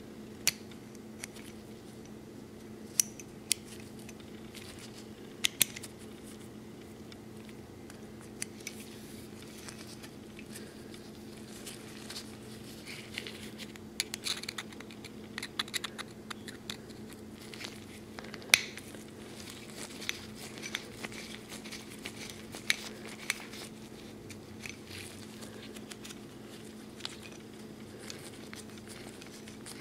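Scattered small clicks, taps and scrapes of a screwdriver and steel parts of an 1851 Colt Navy cap-and-ball revolver being handled during disassembly, busiest in the middle with one sharper click a little past halfway. A steady low hum runs underneath.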